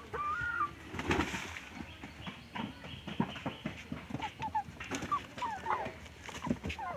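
Chickens making short clucking calls, with scattered clicks and knocks between them.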